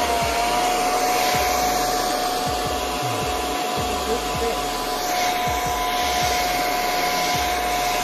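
Handheld hair dryer running steadily: a rush of air with a steady high motor whine over it.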